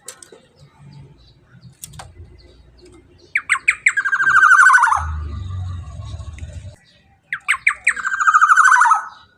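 Black-naped oriole giving two loud, raspy calls about four seconds apart. Each call opens with a few quick sharp notes and then holds a long grating note. A low rumble sounds between the two calls.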